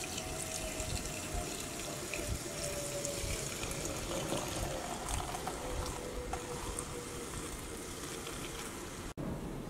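Sparkling water poured in a steady stream from a bottle into a glass carafe, splashing and fizzing as it fills. It stops abruptly near the end.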